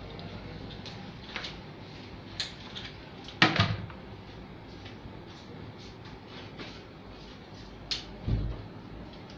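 Scattered clicks and knocks from an electric hair clipper and tools being handled while the clipper is switched off. The loudest knock comes about three and a half seconds in, with two more near the end.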